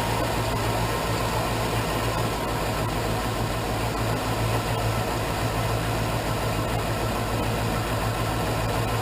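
2001 Chevrolet Suburban 2500's 6.0 Vortec V8 idling steadily after a cold start. This is the cold idle the owner calls rough, following a fresh cylinder-head rebuild.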